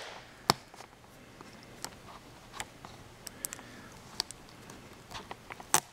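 Scattered small clicks and ticks of a small screwdriver tip working under the tape on a laptop screen's flat video cable connector, with a sharper click about half a second in and another near the end.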